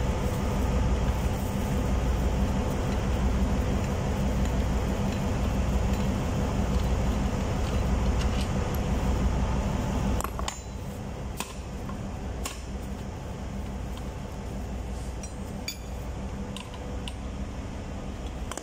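Sharp metal clinks of a spanner and clamp hardware as the body of a Wilden air-operated diaphragm pump is taken apart, mostly in the second half. Under them runs a steady low machinery rumble with a pulsing beat, which drops in level about halfway through.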